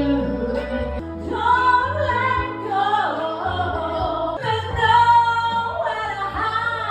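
A pop song with a woman singing a sustained, wavering melody over a steady bass line.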